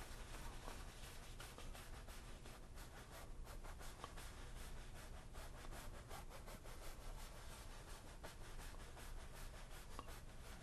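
Wide flat paintbrush rubbing and scratching faintly across canvas in quick, repeated strokes as paint is blended into the sky.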